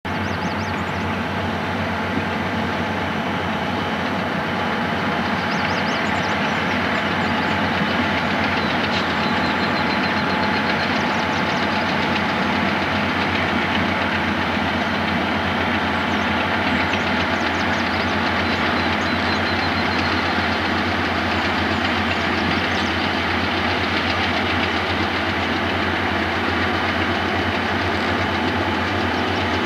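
Diesel-electric locomotives, a GE unit among them, working hard under throttle as a coal train gets under way: a steady, heavy engine drone that grows a little louder over the first several seconds.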